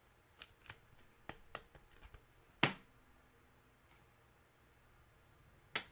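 Football trading cards being handled: a scatter of light taps and flicks, the sharpest about two and a half seconds in and another near the end.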